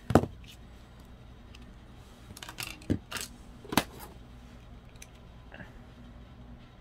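Metal StazOn ink pad tin clicking open with one sharp click. A few lighter clacks follow about halfway through as the tin and its lid are set down on a wooden desk.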